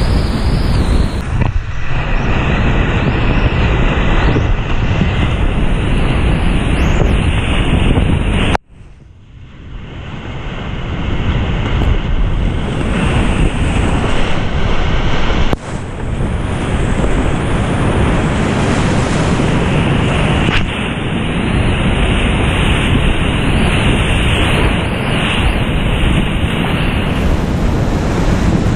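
Loud, steady roar of big high-water whitewater rapids, heard from a kayak in the wave trains, with wind buffeting the microphone. About nine seconds in the sound suddenly drops to a muffled hush and swells back over a couple of seconds.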